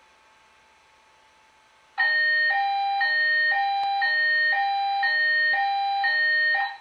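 Fire alarm voice-evacuation speaker sounding a European-style hi-lo siren tone: two pitches alternating about every half second. It starts about two seconds in and stops just before the end.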